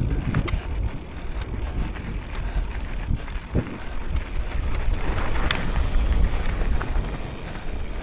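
Electric mountain bike ridden over stony trail: tyres rolling over rocks and the bike knocking and rattling, with several sharp knocks, one of them about five and a half seconds in. Wind buffets the microphone throughout.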